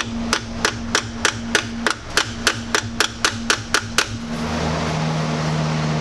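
Claw hammer striking a piece of metal on a wooden block, about fifteen sharp strikes at roughly three and a half a second, stopping about four seconds in. The hammering flattens a crimp-on ring terminal tight onto a battery cable.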